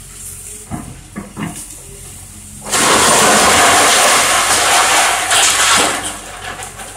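A wood-framed house being pulled down by an excavator: a few sharp cracks of splintering timber, then about three seconds in a sudden loud crash of breaking wood and falling debris that lasts about three seconds before dying away. Under it runs the excavator's steady low engine hum.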